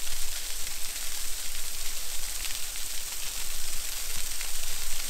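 Small waterfall: a thin stream of water falling over a sandstone overhang and splashing onto the rocks and pool below, a steady hiss of falling water.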